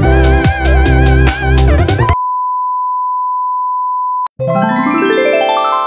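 Intro-template countdown music with a beat, cut off about two seconds in by a steady 1 kHz test-tone beep of the kind played over colour bars, lasting about two seconds. A click then brings in a ringing synthesized chime whose notes come in from high to low and fade away.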